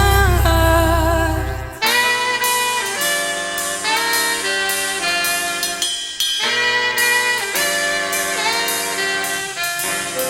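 Instrumental music: a saxophone and brass section playing a jazzy run of held chords. A low bass drone under them cuts out about two seconds in, leaving the horns on their own.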